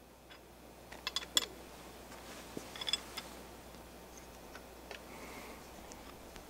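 A few light clicks and taps of small parts and tools being handled: a quick cluster about a second in, another about three seconds in, and a single tick near five seconds, over low room tone.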